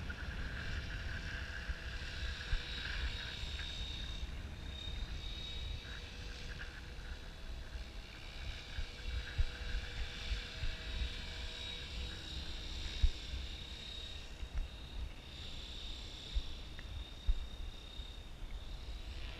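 Align T-Rex 700 Pro DFC electric RC helicopter flying at a distance: the thin, steady whine of its motor and rotors, drifting in pitch and loudness as it circles. Wind buffets the microphone with low rumbles and gusts.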